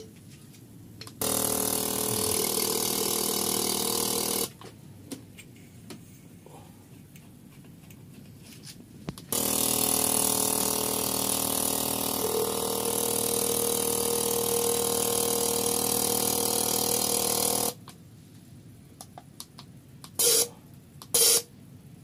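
Number-one fuel injector from an MR18 engine buzzing steadily with a hiss of spray as a bench injector tester pulses it, in two long runs of about three and eight seconds, then two short bursts near the end. Its valve sticks, and it is being run to try to clean it.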